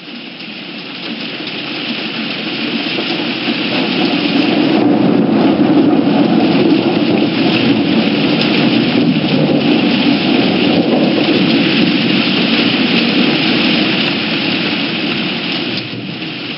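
Storm sound of steady rain with thunder, fading up over the first few seconds.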